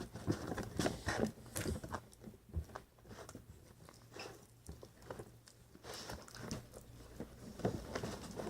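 Sticky glue-and-borax slime being squished and pulled apart by hands, making irregular small sticky clicks and crackles.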